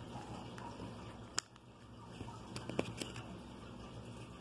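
Small plastic clicks and taps from a Rokit One phone's casing and parts being handled during disassembly: one sharp click about a second and a half in, then a quick cluster of clicks near three seconds, over steady background noise.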